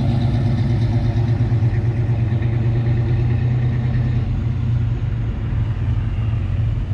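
A car engine running steadily, a low even drone that holds unchanged throughout.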